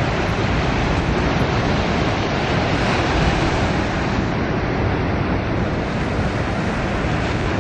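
Ocean surf breaking on a sandy beach: a steady rushing wash of waves, with wind buffeting the microphone as a low rumble.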